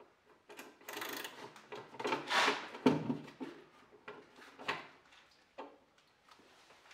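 Plastic engine cover and its fasteners being handled and worked loose to get at the ignition coils: irregular scraping and rustling, with a few sharp clicks and knocks, the loudest a little under halfway through.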